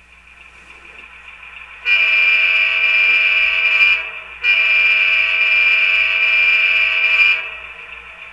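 Sound decoder in an HO-scale model diesel locomotive, an older QSI Q1A, playing a diesel air horn through its small speaker: two long blasts, the first about two seconds and the second about three, with a short break between. A quieter steady sound of the model's idling diesel engine runs underneath before and after the horn.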